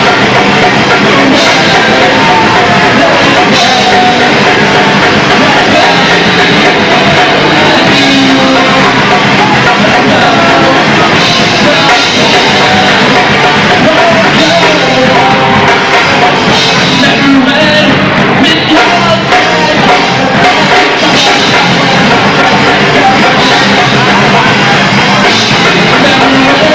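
Live rock band playing loud: electric guitar, bass and drum kit with a singer singing into the microphone over them.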